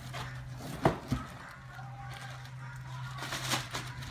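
Unboxing noise: two sharp knocks about a second in, then plastic wrapping crinkling as an 18-inch passive radiator is lifted out of its cardboard box, over a steady low hum.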